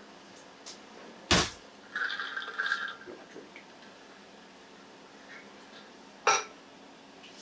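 Two sharp clunks about five seconds apart, with a short high-pitched chirping sound just after the first, over the faint steady hum of a Ninja Foodi dual-basket air fryer running.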